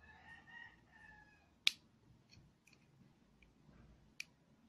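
Two sharp metallic clicks, one about a second and a half in and a smaller one near the end, as a short flat screwdriver pries up the metal bushing holder in an electric fan's motor housing. A rooster crows faintly in the background over the first second and a half.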